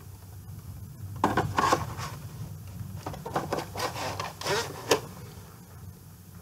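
VHS tape and its cardboard and plastic box being handled: a run of short rubbing and scraping noises with a few sharper clacks, starting about a second in and stopping after about five seconds.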